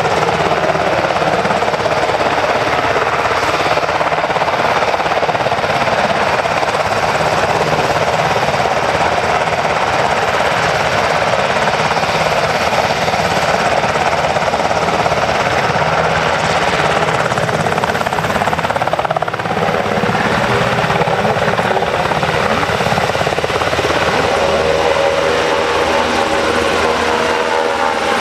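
Sikorsky Black Hawk's twin turboshaft engines and rotor running loud and steady, with a fast, continuous rotor beat. The helicopter lifts off in the latter part, and a steady whine comes in near the end.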